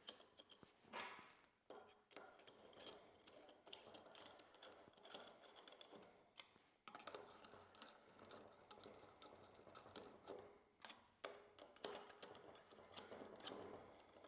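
Faint, irregular ticks and light scraping of a T-handle Allen key turning M6 bolts back into a muffler's end tip.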